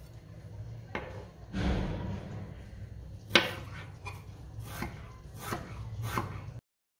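Chef's knife cutting stacked raw potato slices into thin matchsticks on a countertop: the blade knocks on the counter with each cut, about one every 0.7 seconds, the loudest about three and a half seconds in. The sound cuts off suddenly near the end.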